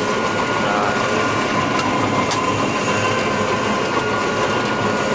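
John Deere 9600 combine running steadily, a dense mechanical rumble and rattle with a faint steady high tone beneath it.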